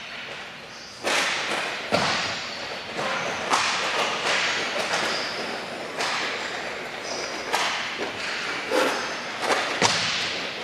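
Hockey play on a plastic sport-court floor: a steady scraping hiss of players moving across the tiles, broken by several sharp clacks and thuds of sticks and puck, the loudest about two seconds in.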